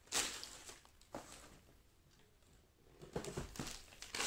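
Packing paper rustling and crinkling as a paper-wrapped shoe is lifted from its box and handled: a sharp rustle at the start, another about a second in, then a run of rustles near the end.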